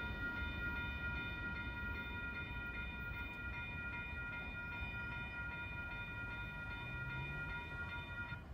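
Railroad grade-crossing bell ringing in a fast, steady stream of strokes over a low rumble, cutting off near the end as the crossing gate arm lifts: the crossing clearing after the train.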